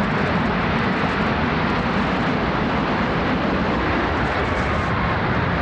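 Loud, steady, unbroken roar of a World Trade Center tower collapsing, heard on an amateur recording.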